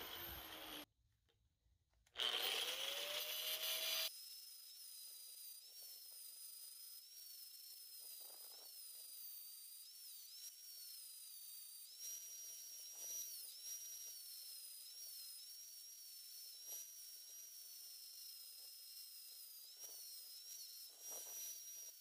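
Electric right-angle grinder cleaning up an aluminum casting: a louder stretch of grinding noise about two seconds in, then a faint, steady high-pitched whine that dips briefly in pitch now and then.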